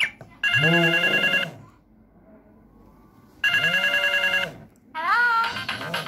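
Samsung SGH-X450 flip phone's 'Hello' ringtone previewing through its small speaker. It is a steady two-tone ring mixed with voice-like sounds sliding up and down in pitch, in phrases about a second long, with a quiet gap of about two seconds after the first.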